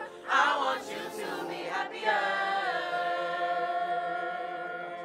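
Group of teenage voices singing together a cappella, holding one long note from about two seconds in.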